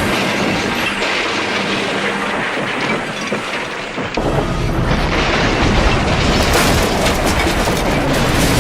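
Train crash sound effect: a dense rushing, clattering noise, joined about four seconds in by a heavy low rumble that grows louder.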